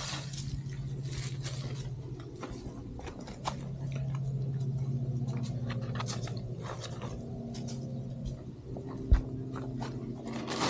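Paper tissue litter crinkling and dry fallen leaves crunching as rubbish is picked up off the ground by hand, over a steady low hum. A single sharp thump about nine seconds in.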